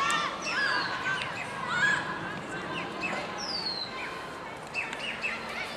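A bird gives a short, high, falling whistle twice, about three seconds apart, among other short chirps and distant shouting voices over a steady outdoor hiss.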